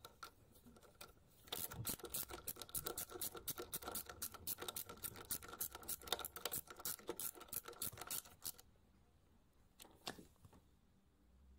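Rapid scratching and clicking, starting about a second and a half in and stopping a few seconds before the end.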